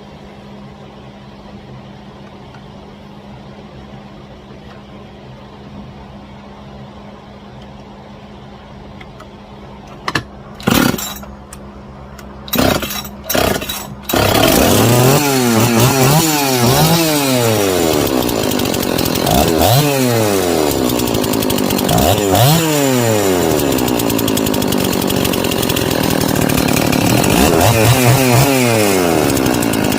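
Rebuilt Husqvarna 266SE two-stroke chainsaw engine, fitted with a 268XP cylinder, catching after a few short bursts and then running, revved up and down several times. A steady low hum comes before it starts.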